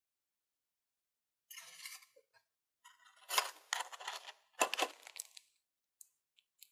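Paper liners of ring molds crinkling and rustling as sponge-cake bases are pressed down into them, in three bursts of dry crackle, with a couple of light clicks near the end.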